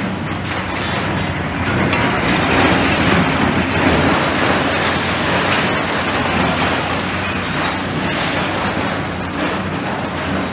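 Demolition excavator's diesel engine running under load, with a continuous crunching and rattling of rubble and scrap metal that is loudest for a few seconds about two seconds in.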